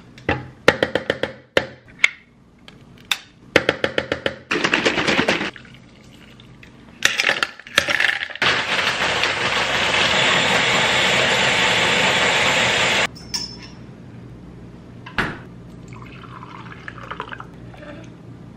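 Coconut cream, milk and ice tipped into a plastic blender jug, with clinks and splashes. Then a countertop blender runs steadily for about four and a half seconds and cuts off suddenly. Afterwards a spoon scrapes the slushy blend out of the jug.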